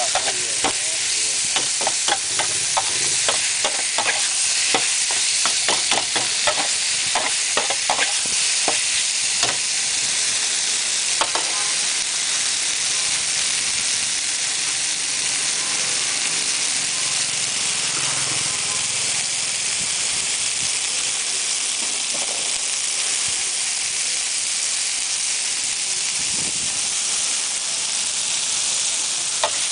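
Stir-fried noodles with bean sprouts and beef sizzling on a hot pan, with a metal spatula scraping and clacking against the pan many times in roughly the first ten seconds. After that it is mostly steady sizzling, with an occasional clack.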